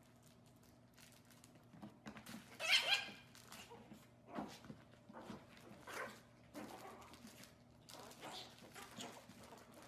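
Chihuahua puppy giving a string of short, high yips and little barks, the loudest burst about three seconds in, then single yips every second or so.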